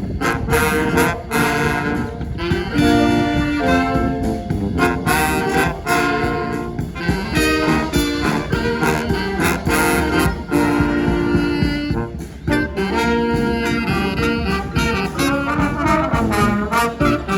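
Brass band playing an instrumental tune: several horns playing held, shifting notes together over a steady beat.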